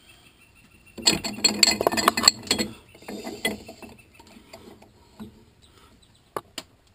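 Metal clinking and rattling of a spanner wrench working the threaded lock collar on a coilover's shock body as the bottom collar is locked down: a dense clatter of clicks for about two seconds starting a second in, then scattered clicks, and two sharp clicks near the end.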